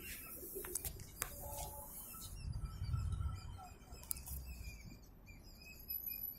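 Faint birds chirping outdoors, with clicks and a low rumble from the camera being handled while walking, the rumble loudest about two and a half to three and a half seconds in.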